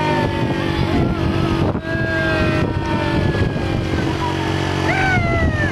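Single-cylinder four-stroke engine of a Honda 125 motorcycle running steadily to drive a tubewell water pump, with a strong jet of water gushing from the pump pipe and splashing into a concrete tank.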